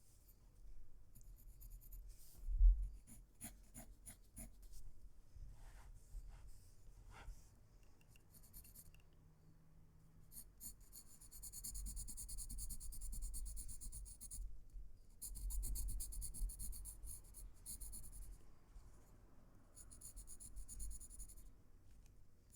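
Pencil scratching on paper as shading strokes are laid down, in spells of a few seconds with short pauses between them.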